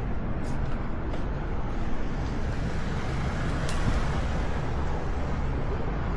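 Steady outdoor noise with a heavy low rumble and a few faint clicks.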